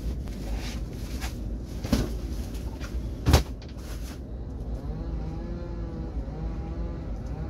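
Wind and sea noise with a few sharp knocks, then from about halfway a steady droning hum, like an engine, whose pitch slowly wavers up and down.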